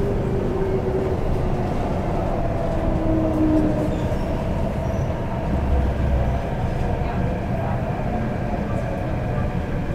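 Onboard running noise of an MTR CNR Changchun C-train motor car: a steady rumble of wheels on rail with the whine of its IGBT-VVVF traction inverter and motors, the tones sinking slowly in pitch.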